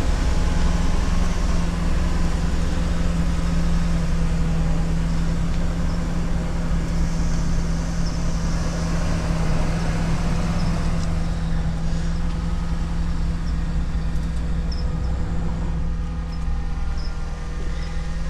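A vehicle engine running steadily at idle, a constant low hum.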